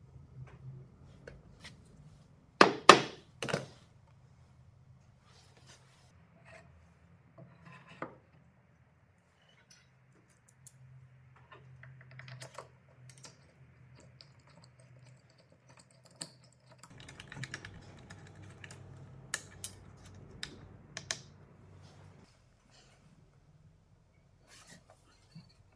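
Hands working metal hardware and wood on a homemade lathe jig. There are three sharp knocks about three seconds in, the loudest sound, then scattered small clicks and taps, and a few seconds of scraping and rustling with more clicks in the second half.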